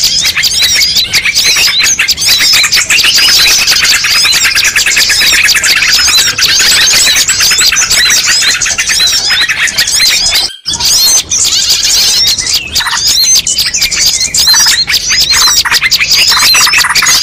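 Dense chorus of many small songbirds chirping and twittering rapidly at once: a mixed-species bird-lure recording used to draw wild birds in. It breaks off for an instant about two-thirds of the way through, then resumes with some lower notes mixed in.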